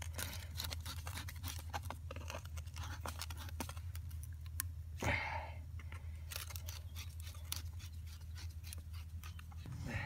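Worm-drive hose clamp on a rubber pipe coupling being tightened with a nut driver: a long run of quick small clicks and scrapes as the screw turns, with a brief louder rustle about five seconds in.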